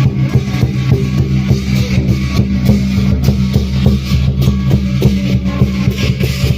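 Loud music with a busy, driving drum beat.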